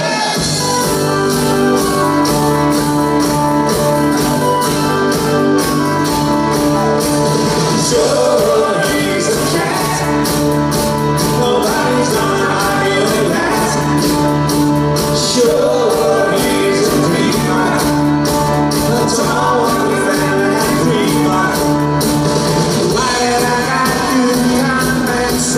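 A live band playing a song with a man singing lead over guitars, bass, piano and drums, with a steady beat.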